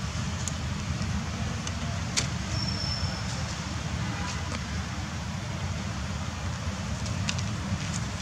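Steady low rumble throughout, with a few sharp clicks and crinkles from a plastic wrapper being handled and chewed by a young macaque, the loudest click just after two seconds.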